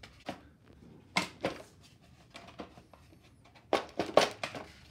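Plastic top housing of a small portable air compressor being worked loose and lifted by hand: scattered plastic knocks and clicks, with a louder cluster of knocks near the end.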